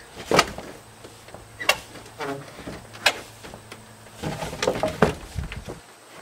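Long wooden poles knocking and clattering against one another as they are pulled from a pile and handled, in sharp knocks about a second apart. One knock rings briefly with a hollow tone, and a quick run of knocks comes near the end.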